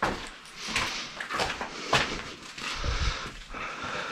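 Footsteps crunching and scuffing over loose wooden boards and rubble on a concrete floor, with several irregular knocks of wood underfoot.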